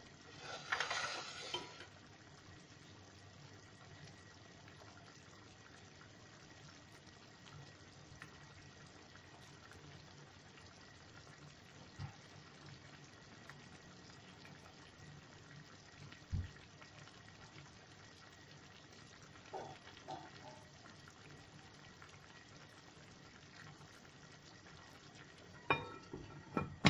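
Tomato chicken stew simmering faintly in a pan on a gas hob, with a brief scrape about a second in and a few small clicks later. Near the end a glass lid is set on the pan with a couple of ringing clinks.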